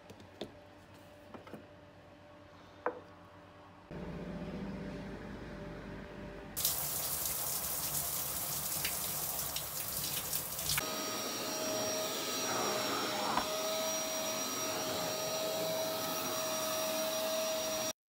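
A string of household sounds: a few faint clicks, then a low appliance hum about four seconds in, then a shower head spraying water in a steady hiss about six and a half seconds in. Near eleven seconds this gives way to a steady whirring hiss with a constant high whine, cut off abruptly near the end.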